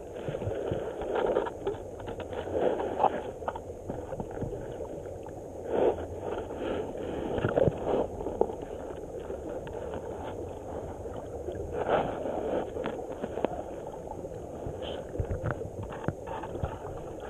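Muffled river water heard underwater from a GoPro camera lying on the muddy riverbed: a steady dull water noise with irregular swells every few seconds.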